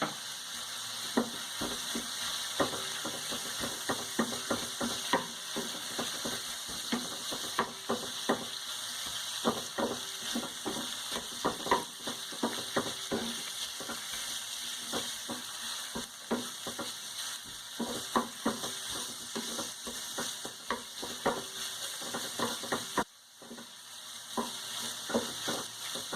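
Chicken breast pieces sizzling in oil in a frying pan while being stirred, with frequent irregular taps and scrapes of the utensil against the pan. The sizzle briefly drops out near the end.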